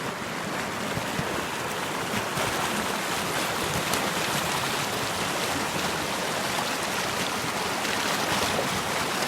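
Running water flowing steadily, a continuous rushing and splashing that grows a little louder about two seconds in.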